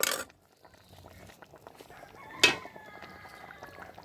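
A rooster crowing faintly in the background, one drawn-out call starting just after a sharp knock about two and a half seconds in.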